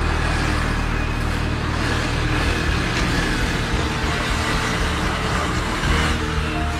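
Sport motorcycle engine running as the bike is ridden along the road.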